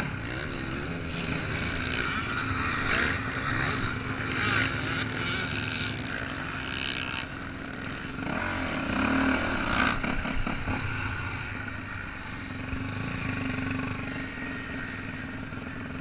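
Dirt bike engine running under way, revving up and easing off several times, with louder surges about three, four and a half, and nine seconds in.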